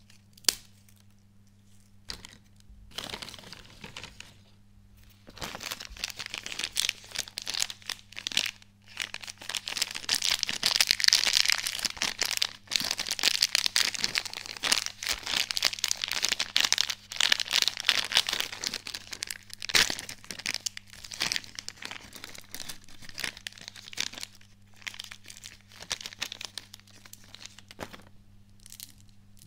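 A small plastic snack packet crinkling and tearing as it is handled and torn open, a dense run of crackling that is loudest in the middle and thins out toward the end. A single sharp click about half a second in.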